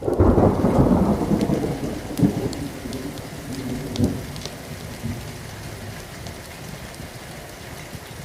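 A thunder rumble that swells in the first second and fades over about five seconds, with two sharper jolts along the way, over steady rain. Scattered sharp crackles run through it.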